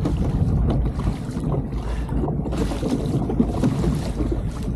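Wind buffeting the microphone in strong gusts on open sea, with water washing against a kayak.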